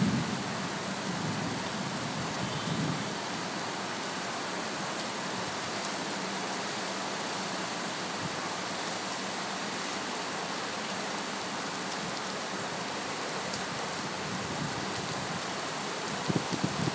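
Heavy rain falling steadily, a dense even hiss. Low rumbles swell briefly in the first few seconds and again near the end.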